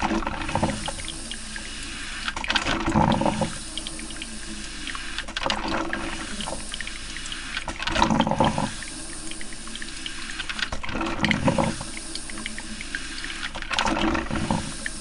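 Coffee maker brewing: water gurgling and sputtering in bursts every two to three seconds over a steady hiss.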